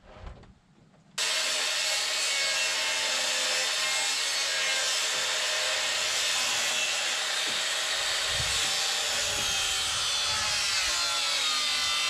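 Circular saw cutting stair-stringer notches into pressure-treated lumber, its motor whine wavering as it works through the wood. It starts abruptly about a second in and runs steadily after that.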